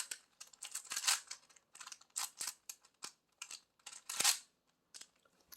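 Rubik's cube being turned by hand: an irregular run of quick plastic clicks and rasps as the layers are twisted, the loudest a little past four seconds in.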